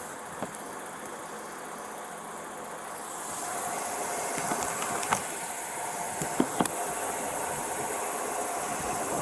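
Steady hum of an idling car engine picked up by a body-camera microphone. It grows a little louder about three seconds in, and a few light clicks and taps come in the middle.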